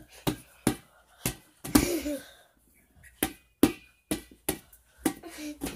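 A flat ball being bounced and batted by hand, giving about ten dull thuds at an uneven pace.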